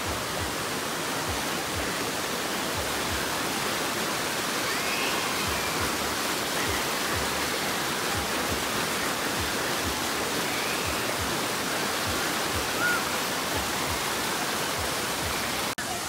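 Water rushing steadily down a natural sandstone rock slide channel at a waterfall.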